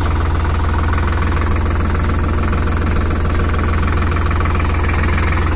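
Sonalika 50 RX Sikander tractor's three-cylinder diesel engine idling steadily.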